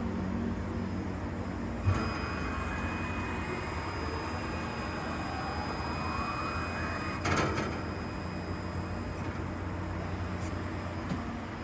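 Urawa UB-75 CNC machining center running over a steady hum: a click about two seconds in, then a motor whine that rises in pitch for about five seconds and ends in a clunk.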